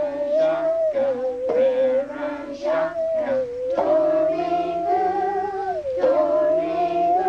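Musical saw struck with a ball-tipped stick, giving a wavering, sliding tone that carries a slow tune and is re-struck every couple of seconds. Children and adults sing along with it.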